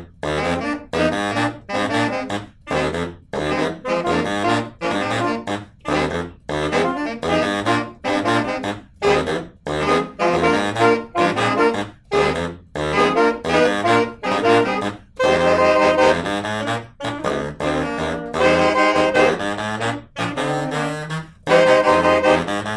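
Saxophone quintet playing a rock arrangement in short, punchy chords with brief gaps between them, over a low bass line. Longer held chords come in about two-thirds of the way through.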